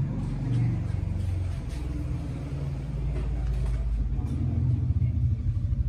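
A steady low engine rumble, like a diesel idling, with a fine, even pulsing.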